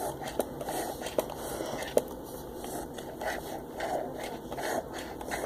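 Close scraping and rustling handling noise with a few sharp clicks, from hands working right at the microphone over a bowl of slime.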